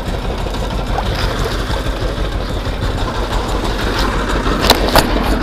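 Small wooden fishing boat's engine running steadily at idle, with two sharp knocks near the end.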